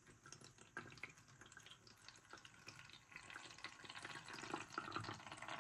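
Water being poured from a small plastic container into the top opening of an ultrasonic essential oil diffuser's reservoir: a faint trickle that grows louder through the second half.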